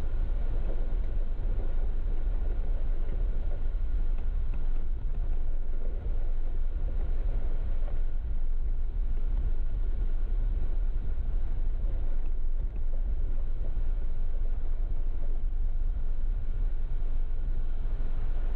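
Jeep driving along an off-road trail: a steady low rumble of engine and drivetrain with no letup.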